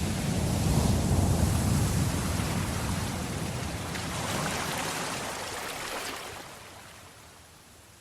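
Sea waves washing onto the shore, a surge in the first few seconds that then dies away near the end.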